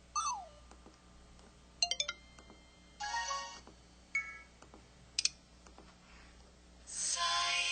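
An LG-SV420 (LG Shine) mobile phone playing its built-in effect and alert sounds one after another. A quick falling tone comes first, then a burst of chirps, two short beeps and a double click. A longer melodic alert starts near the end.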